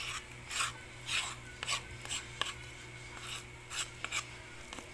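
Wooden spatula scraping and pressing cooked black sticky rice (biko) into a plastic tub, in about nine short, quick scraping strokes.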